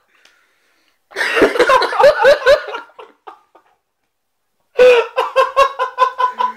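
Men laughing hard: a burst of laughter about a second in, a short break, then a fast, even run of 'ha-ha-ha' laughs near the end.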